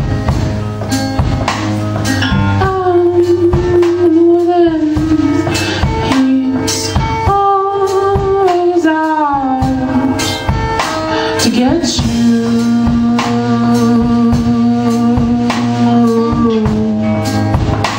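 Band music: drum kit and tambourine keep a steady beat under a melody line with gliding, held notes.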